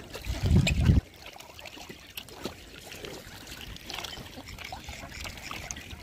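Light splashing and dabbling of water as Pacific black ducks, Eurasian coots and a black swan feed at the surface, with scattered small splashes and pecks. A loud low rumble fills the first second and cuts off suddenly.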